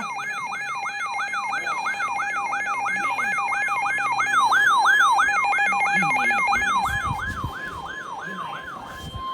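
Electronic siren in a fast yelp, its pitch swooping up and down about three times a second over a steady tone. The swoops stop near the end, leaving only the steady tone.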